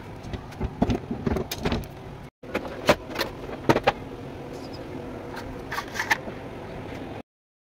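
Clicks, knocks and rattles from the covers and parts of a Xerox 5855 copier's finisher being handled and taken off, over a steady background hum. The sound breaks off for a moment about two seconds in and cuts out near the end.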